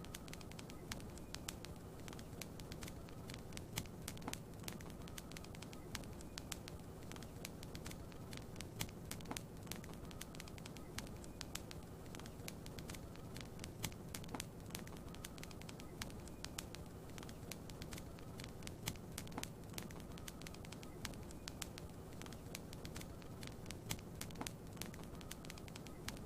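Wood fire crackling in a fireplace: frequent, irregular sharp pops and snaps over a steady low background hiss.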